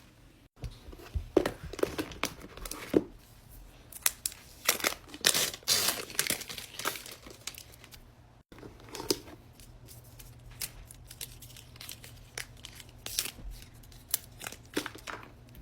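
Laptop packaging being handled, crinkling and tearing, densest in the first half. After a brief cut-out about eight and a half seconds in, it continues as quieter crinkles with a few sharper clicks.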